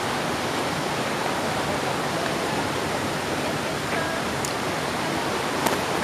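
Water rushing over the rocks of a stream in a steady, even roar.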